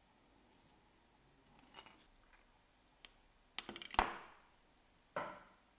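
Small metal clicks and clinks of watchmaking tools and watch parts handled on a bench: a few faint ticks, then a quick run of clicks ending in a sharp, briefly ringing clink about four seconds in, and another clink just after five seconds.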